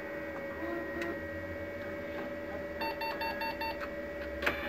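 Brother MFC-9460CDN laser printer starting up: a steady machine hum, then a quick run of about five short electronic beeps around three seconds in. The beeps are the printer's alert that no station ID (fax number) is set. A single sharp click comes near the end.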